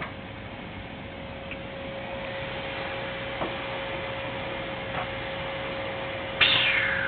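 A cat gives one high meow that falls steeply in pitch near the end, over a steady background hiss and a faint even hum.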